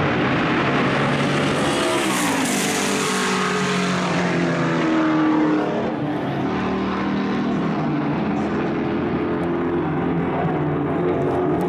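Racing car engines running at speed. One car passes by about two seconds in, its engine note swelling and then falling in pitch.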